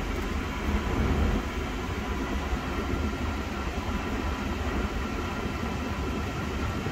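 Steady rush of the air-conditioning blower pushing cold air through the dash vents, over the low rumble of the Mercedes-Benz 560SEL's V8 idling, heard inside the car's cabin. The A/C is running at idle on a freshly recharged R134a system.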